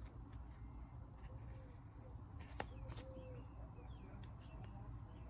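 Faint handling of a small rubber part in the fingers, with one sharp click about two and a half seconds in, over a low steady rumble and a few faint bird chirps.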